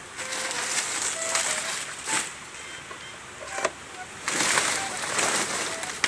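Banana leaves rustling and crackling as they are cut with a long knife and handled, in two noisy stretches with a single sharp crack between them.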